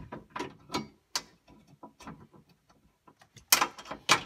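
Socket ratchet clicking in irregular short strokes as a bolt on the door-glass adjustment is worked, with the loudest clicks near the end.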